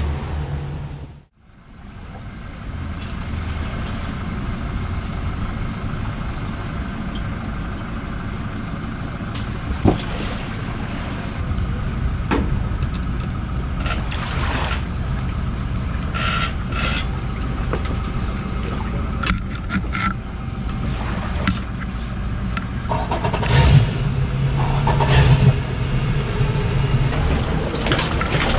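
An engine running steadily, with scattered knocks and clicks.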